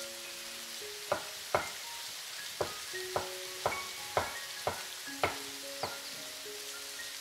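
Chef's knife slicing button mushrooms on a wooden cutting board: about nine sharp knocks of the blade against the board, roughly two a second, stopping about a second before the end.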